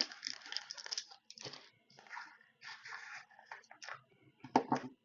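Rustling, scraping and small clicks of hands handling parts and tools while mounting a brushless motor on a drone frame, with two sharp knocks about four and a half seconds in.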